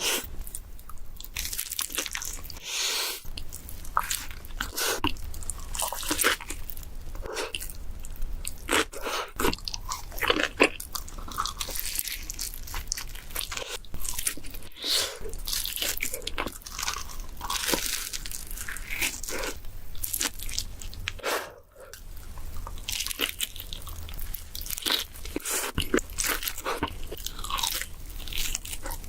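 Close-miked biting and chewing of pizza: crisp crust crunching with each bite, a rapid run of short crunches and chews, cut together one after another.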